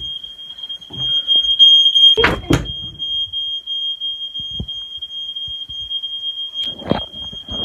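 Smoke alarm sounding one steady, unbroken high-pitched tone: a false alarm with no smoke in the house. Two loud thumps about two seconds in and another knock near the end.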